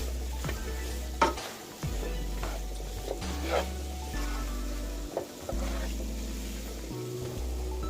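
Cabbage with bell peppers and jalapenos frying in a pan while it is stirred, the spoon or spatula scraping through the vegetables in a series of short strokes. Background music with a steady bass line plays under it.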